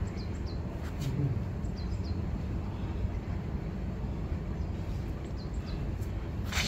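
Outdoor ambience: a steady low rumble, with a small bird chirping in short falling pairs several times, and a sharp knock near the end.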